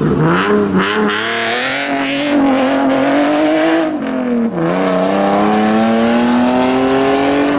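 A modified car's engine accelerating hard. Its pitch climbs steadily, drops sharply at a gear change about four and a half seconds in, then climbs again as it pulls through the next gear.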